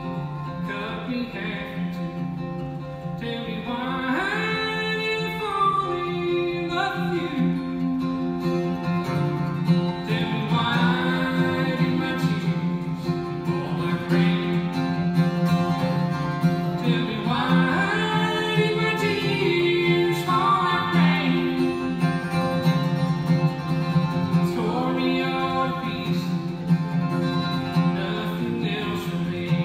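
Acoustic guitar and a second plucked string instrument played live, accompanying a man singing a slow country song.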